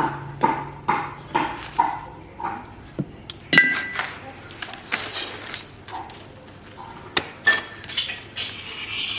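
Metal being tapped at about two strikes a second, then irregular metal-on-metal clinks, some ringing briefly. The loudest clink comes a little past a third of the way in.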